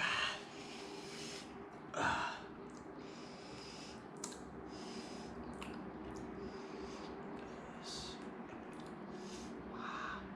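A person eating: short mouth and chewing noises with breaths through the nose, two louder breaths at the start and about two seconds in, over a steady low hum.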